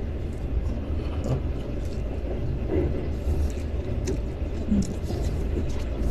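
Steady low rumble of a moving passenger train, heard inside a sleeper carriage, with a few faint taps.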